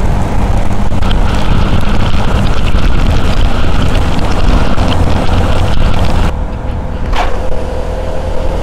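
CFMoto 250NK's single-cylinder engine running under way, with heavy wind rush on a helmet microphone. The wind rush eases about six seconds in, and two short squeaks come near the end.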